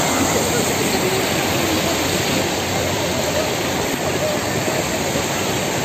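Steady rushing of water from a spring running in flood after heavy rain.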